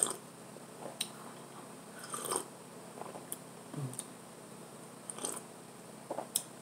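Quiet, close-miked mouth sounds of drinking coffee from a mug: short sips and swallows with small clicks, about one every second.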